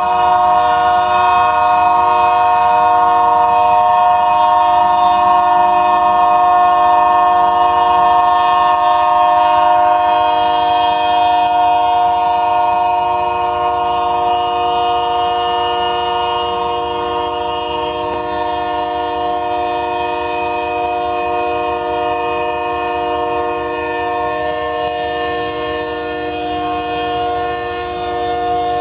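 Locomotive air horn stuck on, blowing one continuous multi-note chord with no break. It grows slightly fainter after about ten seconds.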